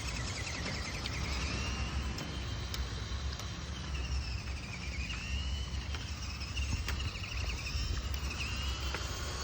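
Electric motor of a remote-control car whining, its pitch rising and falling as it speeds up and slows down, over a steady low rumble.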